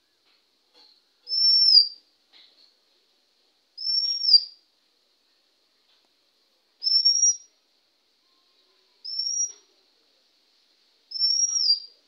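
Male Oriental magpie-robin whistling: five short, clear, high notes, each rising and then falling away, repeated about every two to two and a half seconds.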